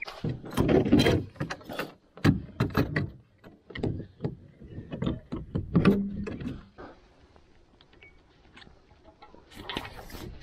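Irregular knocks, clicks and rustling from rigging a small racing dinghy by hand: a rope hauled up beside the aluminium mast, the sail cloth rustling and the boom's fittings knocking as they are handled. Busy for the first several seconds, quieter after, with another burst of handling near the end.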